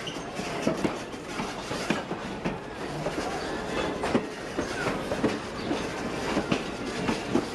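Railroad passenger coaches rolling past, a steady rumble of wheels on rail with irregular clicks as the wheels pass over the rail joints.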